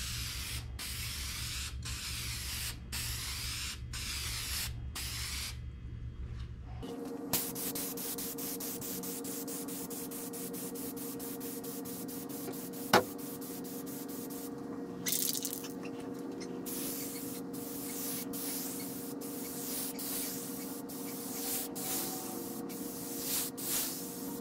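Spray gun hissing in repeated short passes as amber toner is sprayed on, with a steady hum underneath that changes character about a third of the way in.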